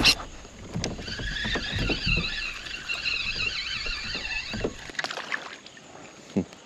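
Knocks and water sounds from a kayak on the water, with a sharp click right at the start. From about a second in, a high wavering trill runs for several seconds above it.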